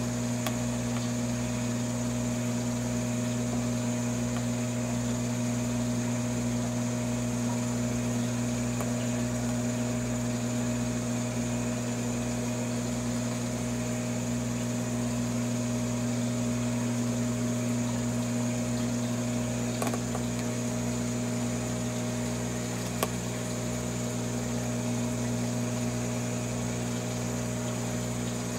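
Aquarium pump humming steadily with a low electrical drone. Two brief clicks come about three seconds apart, past the middle.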